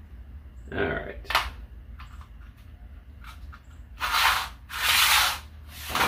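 Spray cleaner hissing out in short bursts, two about four and five seconds in and a third at the very end, with a rustle and a sharp click about a second in.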